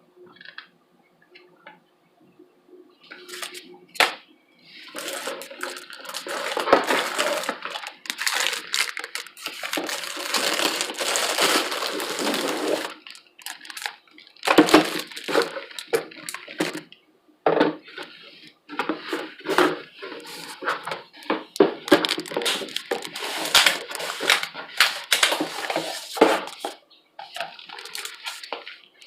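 Rustling and crinkling of packaging and the clatter of plastic parts being handled during unboxing. It comes in long irregular stretches of close handling noise with short pauses between them.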